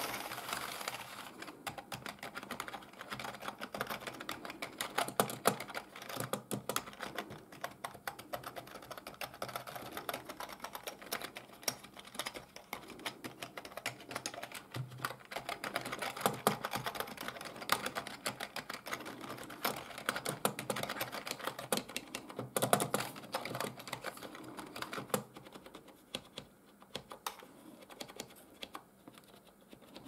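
Typing on a Cherry G83-6105 (RS 6000 M) membrane keyboard: a dense, quick run of key clicks that thins to scattered single keystrokes near the end.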